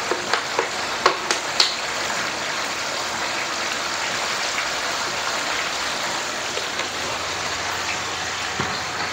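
Turmeric gravy boiling in a wok on a gas stove: a steady bubbling hiss, with a few light clicks in the first two seconds.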